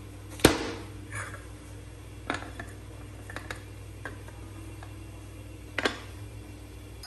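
A serving tray set down on a stone countertop with one sharp knock, then porcelain saucers laid onto the tray with several light clinks and knocks, ending in a quick double knock.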